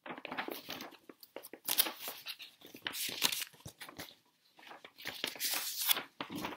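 Paper sketchbook pages being turned and handled, rustling in several short bursts with brief pauses between them.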